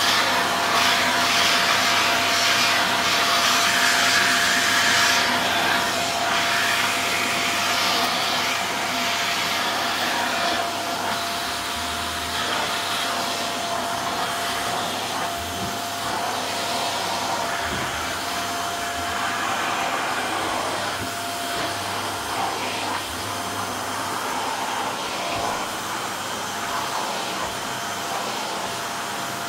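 Blue canister vacuum cleaner running steadily, its motor noise with a steady whine, as the wand is worked over carpet. It is a little louder for the first five seconds or so.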